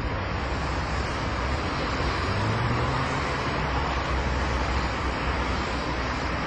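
Steady outdoor rumble of road traffic, swelling a little about two seconds in as if a vehicle passes.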